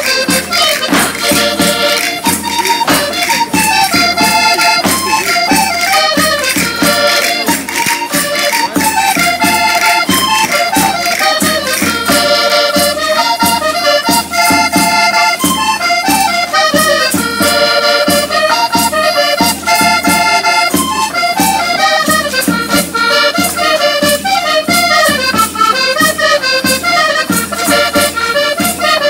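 Portuguese folk music for a vira picado: an accordion plays a quick melody over percussion keeping a fast, even beat.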